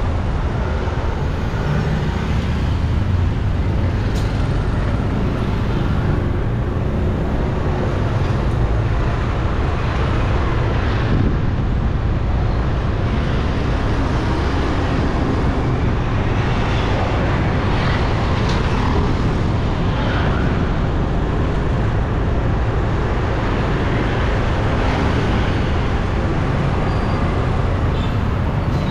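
Steady street traffic noise: a low rumble of passing vehicle engines at an even level.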